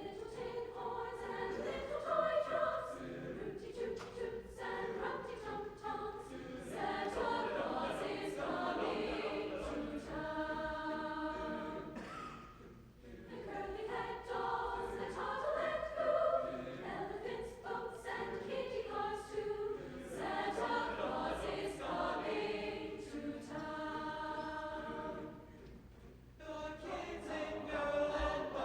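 A high school choir singing in long sustained phrases, with two brief pauses between phrases, about twelve and twenty-six seconds in.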